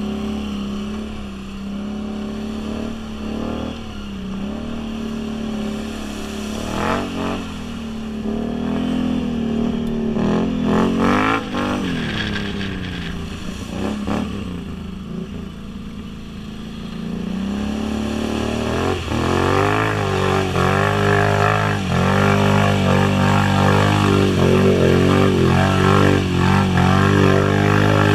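2011 Can-Am Renegade 500 quad's single-cylinder engine with an HMF aftermarket exhaust, revving up and down with quick throttle blips. From about two-thirds of the way through it is held at higher revs and runs louder.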